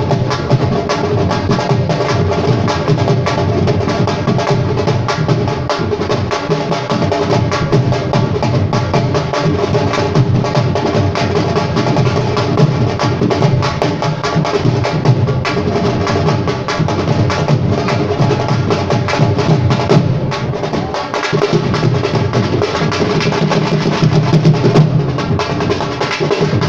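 Live music: rapid, dense drumming over steady held melodic tones, with no pause.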